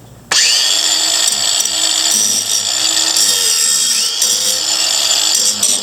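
Cordless angle grinder with a grinding disc starting suddenly and running against a steel mower blade, its motor whine climbing as it spins up, and climbing again about four seconds in.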